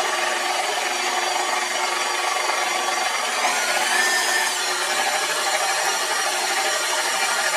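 Electric mixer running steadily, beating eggs into sugar and oil for a cake batter.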